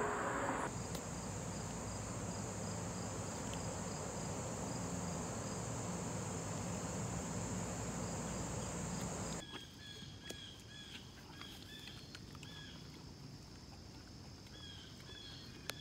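Insects calling: a steady high-pitched insect drone for most of the first nine seconds, then, after a sudden drop in level, repeated short cricket-like chirps.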